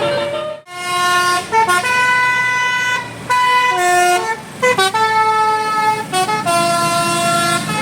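Telolet Basuri bus horn playing a tune: a string of loud, held notes stepping up and down in pitch, with a brief break about half a second in.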